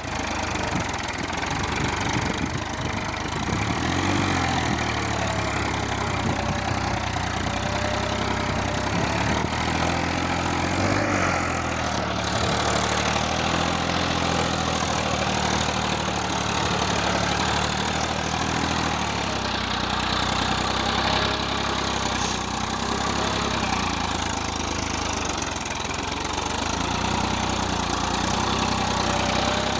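Tractor engine running steadily while ploughing a field, its pitch shifting slightly up and down a few times.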